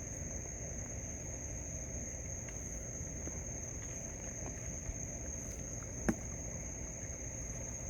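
Night insects trilling steadily on one unbroken high note, over a low background rumble; a single sharp click about six seconds in.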